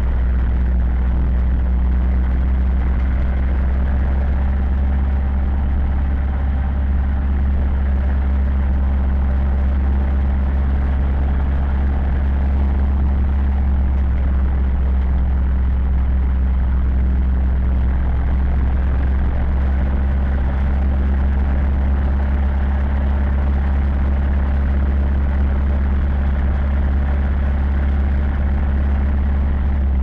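Zetor 7011 tractor's four-cylinder diesel engine running at a steady speed under way, a constant low drone heard from inside the cab.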